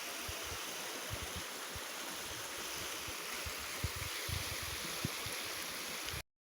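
Mountain stream rushing steadily. It cuts off suddenly near the end.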